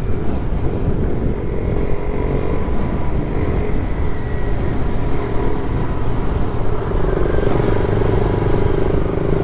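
Royal Enfield Continental GT 650's parallel-twin engine running steadily while riding at road speed, mixed with wind and road noise.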